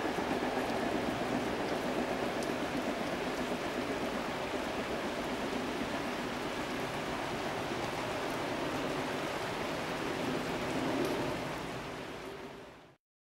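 Steady rain falling, an even hiss that fades near the end and then cuts off abruptly.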